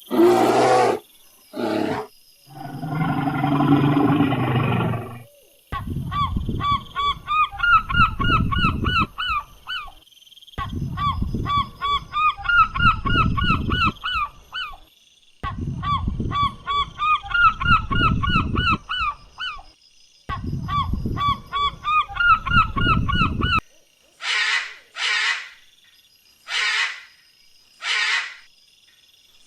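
Domestic waterfowl calling in long runs of rapid, repeated honks, several calls a second, after a brief low drawn-out animal call. Near the end come short hissing bursts about once a second.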